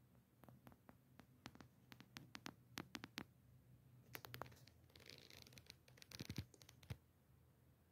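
Faint handling noise from a hand-held phone: a run of small clicks and taps in the first few seconds, then two short scratchy rustles a little past halfway, over a faint steady hum.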